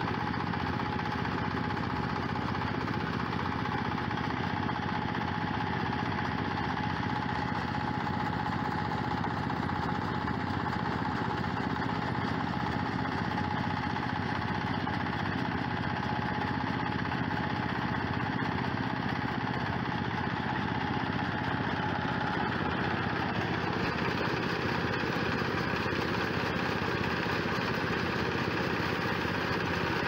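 Small single-cylinder diesel engine running steadily under load, driving a paddy thresher's drum as rice sheaves are fed in, with a steady whine over the engine note.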